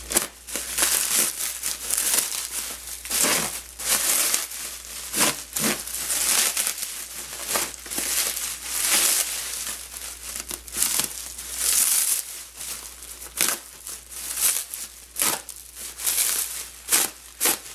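A bag of small figures crinkling and rustling in repeated irregular bursts as it is handled and opened.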